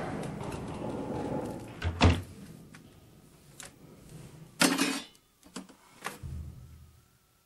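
A door thuds shut about two seconds in, followed by a short noisy burst and a few softer knocks.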